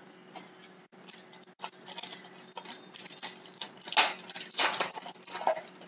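Hockey trading cards being handled and flipped through by hand: a run of short taps, rustles and clicks, loudest about four seconds in.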